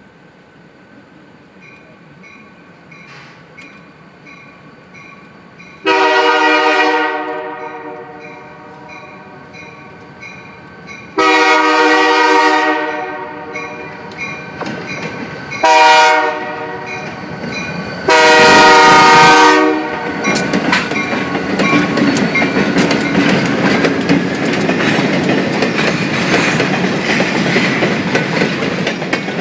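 A freight locomotive's air horn sounds the grade-crossing signal: two long blasts, a short one and a final long one. The lead unit, EMD GP40-3 4001, then passes close by, and the rumble and clickety-clack of the train's wheels and cars builds and stays loud. A faint, evenly repeating ringing, like a crossing bell, sits under the first half.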